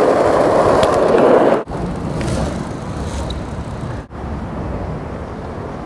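Steady road traffic rumble from an elevated highway overhead. It follows a louder, even rushing noise in the first second and a half that cuts off abruptly.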